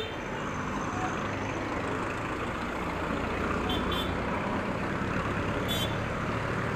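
Honda Airblade 150 scooter riding in city traffic: steady engine, road and wind noise, slowly growing louder. A few short high chirps come about four and six seconds in.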